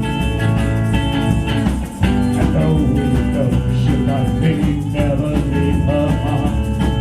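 Live band music playing an instrumental passage of the song, with guitar prominent.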